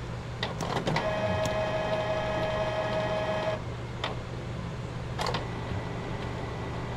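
Canon G1010 ink-tank printer running a deep-cleaning cycle on its color print head: a steady motor whine for about two and a half seconds, with clicks before and after it. The cleaning is meant to clear clogged nozzles that leave magenta missing from the prints.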